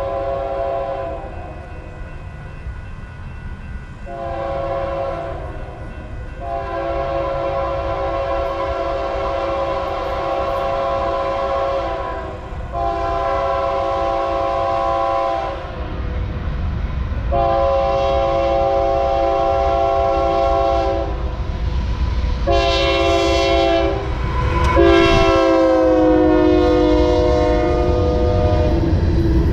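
Union Pacific freight locomotive's multi-chime air horn sounding a series of long and short blasts as the train approaches, over a rumble that grows louder as the train nears. Near the end the horn chord drops in pitch as the locomotive passes, and the loaded flatcars rumble by.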